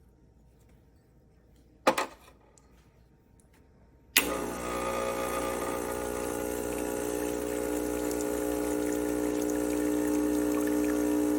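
A single click, then about four seconds in the vibratory pump of a Gaggia Classic Evo Pro espresso machine switches on and runs with a steady buzzing hum that grows slightly louder, pumping water through the machine.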